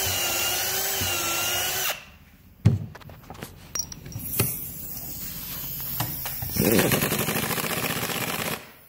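Milwaukee M18 cordless drill boring a pilot hole in wood, running steadily and stopping about two seconds in. A few knocks and clicks follow as parts are handled. Near the end a pneumatic impact wrench hammers for about two seconds, driving a fastener down into the post base.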